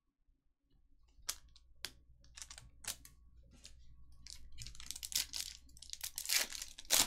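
Foil trading-card pack wrapper crackling as it is handled, a few sharp crackles at first. From about five seconds in it becomes dense crinkling and tearing as the pack is ripped open.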